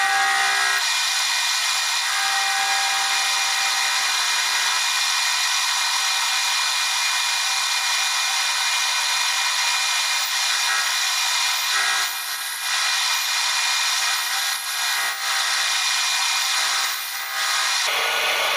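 A power tool running steadily with a high, even hiss and whine, easing off briefly three times in the later part.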